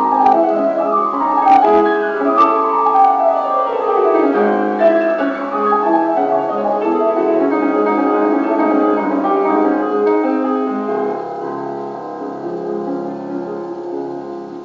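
Solo piano music played from a record on an HMV 163 acoustic gramophone. A rapid falling run comes about a second in, then flowing chords that grow quieter near the end. The sound has no deep bass and no high treble, with a few clicks.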